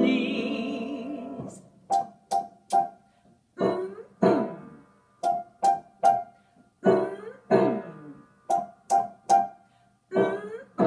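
Piano music: the song's last held chord under a sung 'please', then short, crisp notes in a bouncy rhythm of twos and threes.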